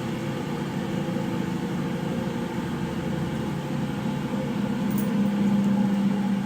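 Commercial washing machine running with a steady mechanical hum; a low hum grows louder from about halfway in.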